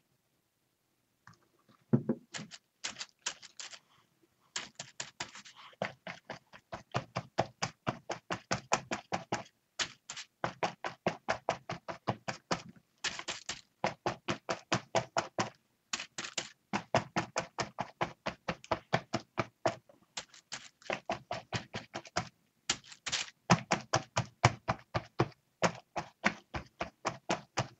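A sponge dabbed rapidly onto a paper journal page, pouncing on paint: quick soft taps about five a second, in runs broken by short pauses.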